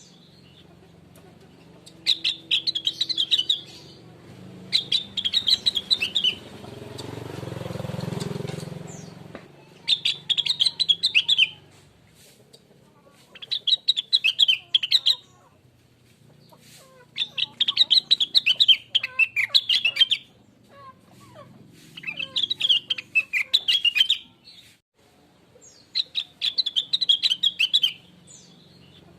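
Rengganis (cucak wilis, blue-winged leafbird) singing in repeated fast, chattering phrases of about a second each, with short pauses between them. A rushing noise swells and fades behind the song about a third of the way in.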